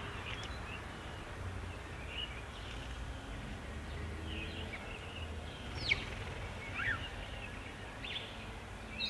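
Birds giving scattered short chirps and call notes over a steady low background hum, with the sharpest call about six seconds in.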